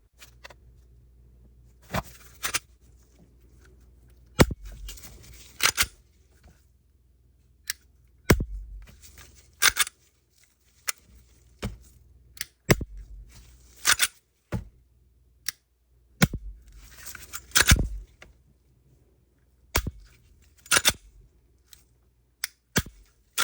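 Glock 43X pistol being dry-fired again and again: sharp metallic clicks as the trigger breaks, some in quick pairs, with sliding scrapes between them as the slide is worked to reset the trigger.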